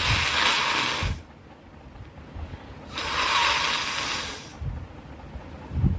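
A person blowing their nose hard twice, each blast a rushing of air lasting about a second and a half. A brief low bump comes just before the end.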